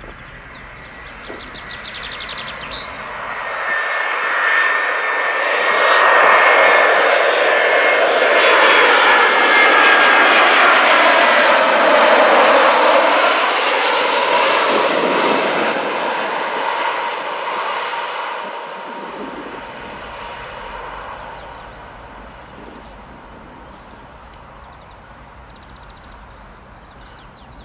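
Airbus A319 jet airliner on landing approach passing low overhead: the jet engine noise swells over several seconds, with a high whine as it approaches, peaks, then fades away as it passes.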